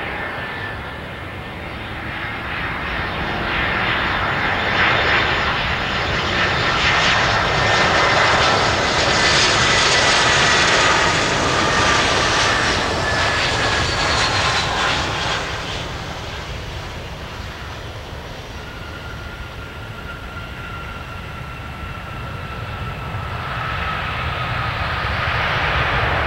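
Airbus A320 jet engines on landing: the whine and rumble build as the airliner passes low overhead, loudest about halfway through with a high whine sliding down in pitch as it goes by. After touchdown the noise eases, then swells again near the end as the jet rolls out on the runway.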